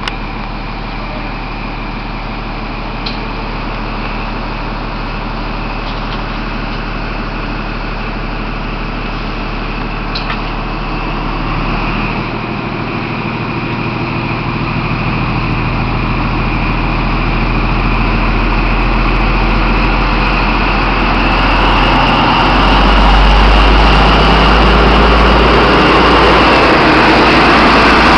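Diesel engine of a Class 43 HST power car pulling away from a platform, a steady engine note with a high whine that grows louder as the power car draws near. A deep rumble swells about three-quarters of the way in as it comes alongside.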